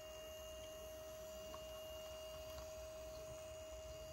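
Dapol Class 59 DCC-fitted model locomotive running along the track: a faint, steady high-pitched whine from its motor and decoder, with a few light clicks.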